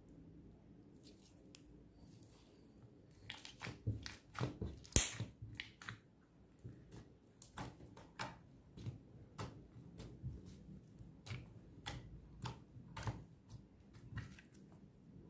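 Clear slime being squeezed and poked by hand, making sharp pops and crackles. It is quiet for the first few seconds, then the pops come irregularly, about two a second, the loudest about five seconds in.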